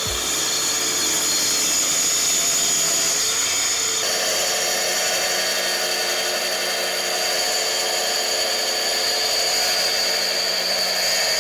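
Electric saw motor running steadily through plywood with a high whine. The tone shifts about four seconds in.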